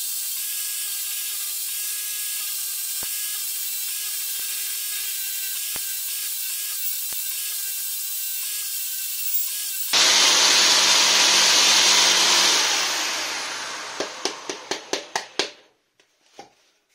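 Corded electric drill spinning an 80-grit sanding disc with a steady whine while a wooden bowl blank is sanded on it. About ten seconds in, the sanding turns suddenly louder and rougher, then fades away over a few seconds with a run of sharp ticks and stops shortly before the end.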